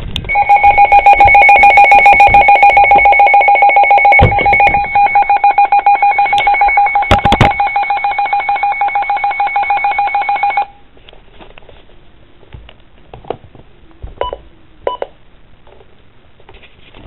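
NOAA Weather Radio alert tone sounding loud and steady for about ten seconds with a fast pulsing ripple, signalling the start of a warning broadcast, with two sharp knocks during it. It cuts off, leaving faint radio hiss with a few small clicks.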